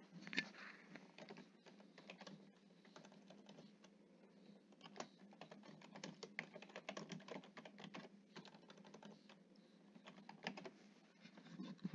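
Faint typing on a computer keyboard: a run of irregular keystroke clicks.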